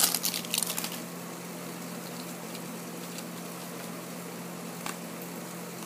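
Clear plastic wrapper crinkling for about a second as it is pulled off a small plastic toy, then a steady low hum with a faint click about five seconds in.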